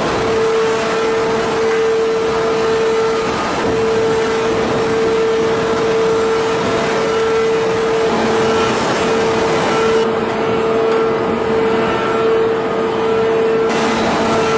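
Hydraulic forging machinery running in a steel forge: a loud, steady drone with a constant mid-pitched whine and no hammer blows.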